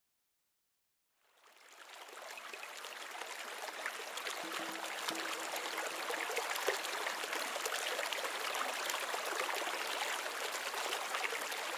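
Running water, a steady rushing that fades in about a second in and grows louder over the next few seconds.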